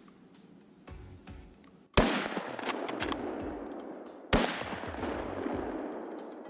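Two hunting rifle shots about two seconds apart, each trailing off in a long echo.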